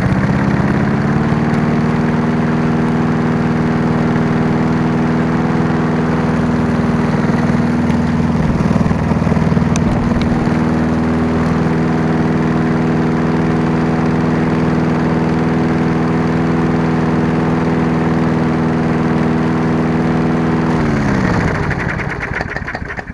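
Murray Sprint 3.75 lawn mower's four-stroke engine running steadily at one even speed after starting, now that a clogged carburetor emulsion tube has been cleaned; near the end it winds down and stops. The owner finds the idle a little low.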